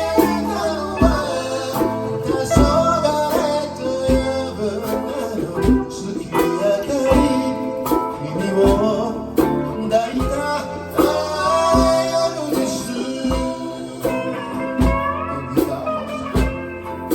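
Live band playing an instrumental passage of a blues-tinged song: a guitar lead with bending notes over bass and a steady kick drum.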